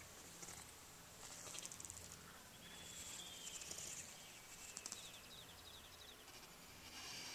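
Faint outdoor ambience of high-pitched chirping trills from background birds, coming in several short bouts; the wrestling cats make no clear hiss or growl.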